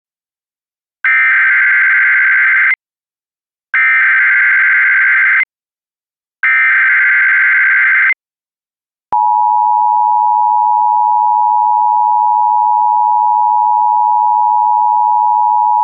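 Emergency Alert System tones opening an AMBER Alert: three bursts of buzzy digital data tone (the SAME header), each nearly two seconds long with short silent gaps between them. About nine seconds in, the steady two-tone EAS attention signal starts and holds.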